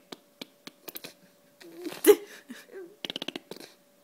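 A nursing baby's wet sucking and smacking noises: scattered clicks, a short squeaky vocal sound about two seconds in, and a quick run of rapid smacks a little after three seconds.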